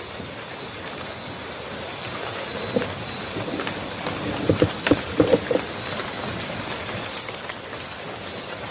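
Night forest ambience: a steady hiss with a thin, steady high tone and scattered faint clicks. About halfway through, a brief cluster of short, low, pitched calls sounds several times.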